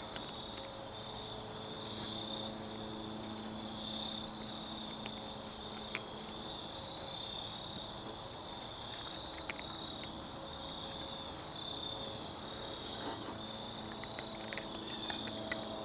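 Crickets trilling steadily in one high continuous band, over a faint low steady hum, with a few faint scattered clicks and rustles.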